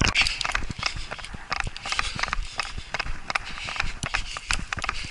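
Footsteps of a person moving through shallow snow and dry grass stems, an irregular string of steps and brushing of stalks.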